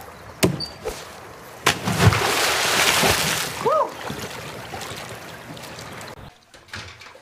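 A few sharp thumps from a springboard diving board, then a big splash into a swimming pool about two seconds in, followed by water sloshing that slowly dies away.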